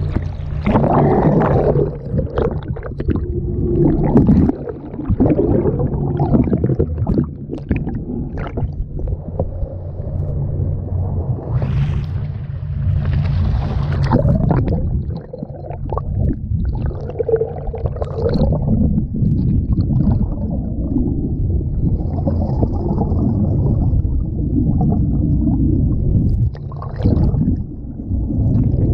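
Sea water rushing and sloshing over a waterproof action-camera housing as it plunges in and out of the waves, heard muffled and gurgling, in uneven surges. Under it runs a steady low drone from the moving boat.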